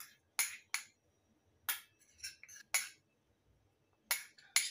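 Porcelain bowl clinking and tapping as fermented black beans are tipped and tapped out of it onto pork ribs in a stainless steel bowl: about nine sharp, separate clinks, some in quick pairs.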